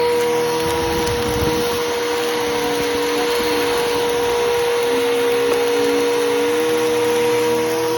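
Bissell Powerforce Helix Turbo upright vacuum running steadily with a constant motor whine, a lower tone wavering up and down as it is pushed, and a brief low rumble about a second in.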